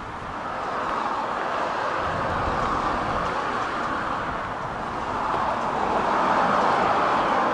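Rushing noise of passing traffic, swelling about a second in and again near the end as vehicles go by.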